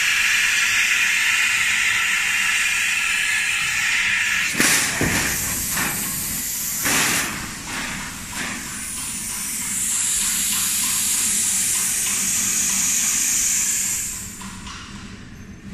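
Plasma cutting torch hissing steadily as its arc cuts sheet steel, stopping about four and a half seconds in. Clanks and scrapes of the cut steel sheet being handled follow, then a higher-pitched steady hiss from about nine to fourteen seconds.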